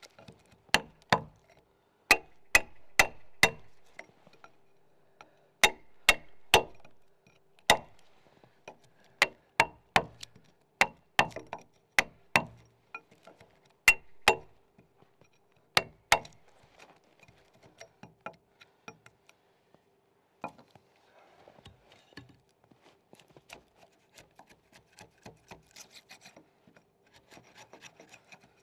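Wide wood chisel cutting into a log's cog notch: a quick series of sharp knocks as it is driven into the wood in clusters, giving way after about sixteen seconds to soft scraping as the chisel is pared flat across the cut surface.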